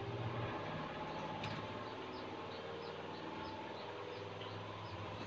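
A small bird's short, high chirps, repeated evenly about three times a second from about two seconds in, faint over a steady low hum.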